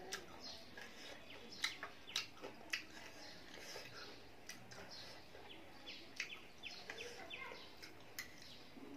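Eating noodles with a fork and spoon: an irregular series of sharp clicks and smacks, the loudest in the first three seconds. Birds chirp in short, quick calls in the background, more often in the second half.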